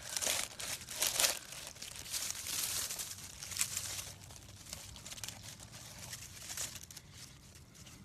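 Close rustling and crinkling of clothing fabric rubbing over the phone's microphone as the phone is shifted about, in irregular bursts that are loudest in the first half and fade toward the end.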